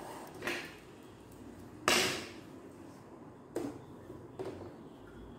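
A few short clicks and knocks from hands working at a household sewing machine's needle and presser foot, the loudest about two seconds in; the machine's motor is not running.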